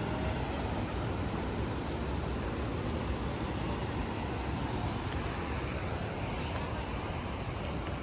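Steady rushing outdoor noise, with a few short high bird chirps about three seconds in.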